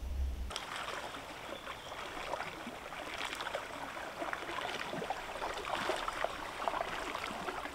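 River water trickling and babbling, with many small irregular splashes. A low rumble cuts off about half a second in.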